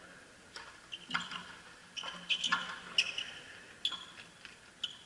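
Frontenis rally: the small rubber ball smacking off racquet strings, the front wall and the floor, about eight sharp cracks at uneven intervals.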